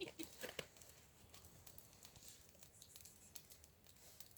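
Near silence: room tone with a few faint clicks and light rustles, most of them in the first second.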